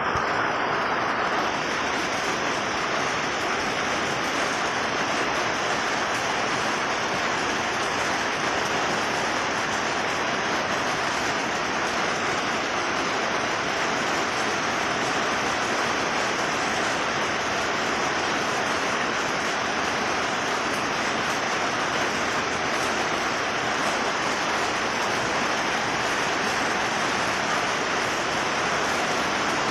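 Steady rain falling on a roof: a dense, even hiss of many drops with no single hit standing out and no let-up.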